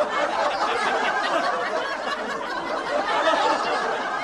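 A crowd of many voices laughing and chattering at once, a dense, steady wash of overlapping laughter.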